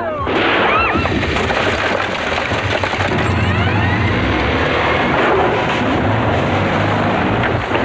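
Small car being driven: engine and road noise, mixed with music. A few brief high sliding whistles come about half a second in and again about three and a half seconds in.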